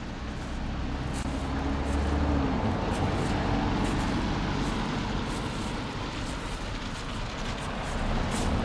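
A motor vehicle passing by, its engine rumble swelling to a peak about two to four seconds in and then easing off, with its engine note dropping in pitch near the peak.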